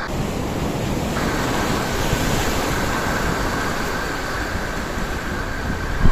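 Ocean surf washing over shoreline rocks, with wind buffeting the microphone: a steady noise.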